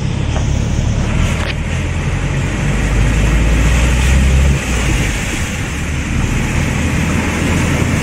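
Car cabin noise while driving through deep floodwater: a steady low engine and road drone under a constant rushing hiss of water around the car. The low drone eases about four and a half seconds in.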